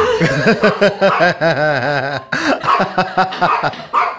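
Alaskan malamute 'talking': a continuous string of short rising-and-falling vocal calls with a short break a little past halfway, begging for watermelon.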